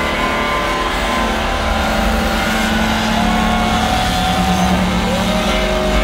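Engine revving sounds: two rises in pitch, each held for a second or two, over a steady low hum.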